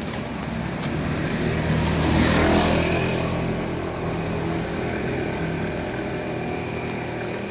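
A motor vehicle passes close by on a wet road in the rain. Its engine and tyre noise swell to a peak about two and a half seconds in and then fade, with a steady engine hum lingering under the rain.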